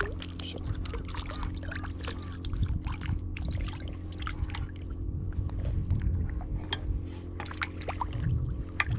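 Water splashing and sloshing close by, with many small irregular drips and splashes, as a hooked black sea bream (chinu) thrashes at the surface in the shallows.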